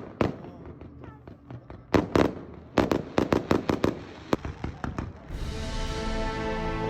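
Fireworks going off in a quick, uneven series of sharp bangs. About five seconds in, music with long held chords comes in and carries on, with a few more bangs over it.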